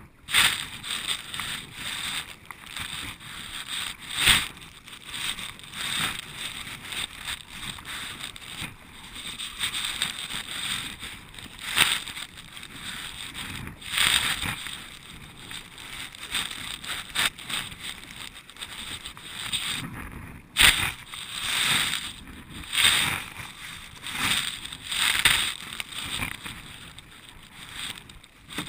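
Kayak paddle blades dipping and splashing into choppy water, a loud splash every second or two at an uneven pace, over a steady wash of water along the hull.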